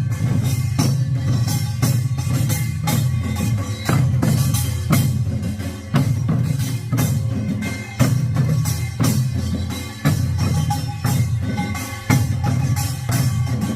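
Korean pungmul percussion: buk barrel drums beaten in a fast, steady rhythm, with a heavy accented stroke about every two seconds.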